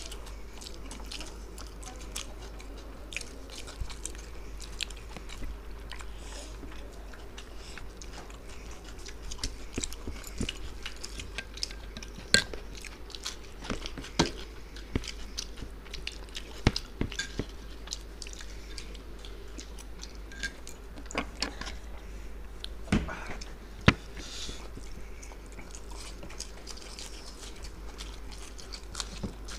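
Two people eating biryani with their hands: close-up chewing and mouth noises, with scattered sharp clicks and taps throughout, a few louder ones around the middle and near the end. A steady low hum runs underneath.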